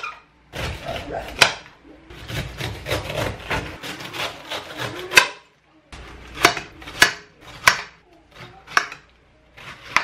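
Chef's knife cutting up a pineapple: a rasping stretch as the blade saws through the tough rind, then a run of sharp knocks about every half second as the knife comes down through the fruit onto the plate and counter.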